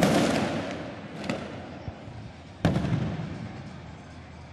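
Fireworks exploding: a loud bang at the start, a smaller one just over a second later and another loud one about two and a half seconds in. Each bang is followed by a fading rumble of echo.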